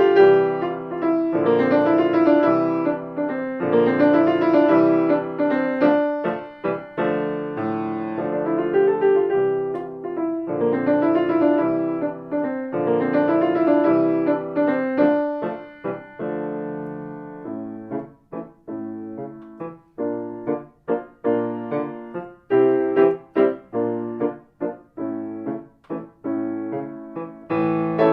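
Solo piano playing a samba piece: full, ringing chords through the first half, then short, detached chords with brief gaps between them from a little past the middle.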